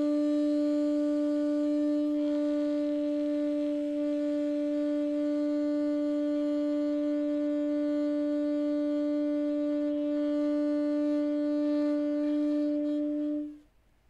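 Saxophone holding one long, steady note on B (H) for as long as a single breath lasts, a long-tone test of the embouchure. The note stops near the end as the breath runs out.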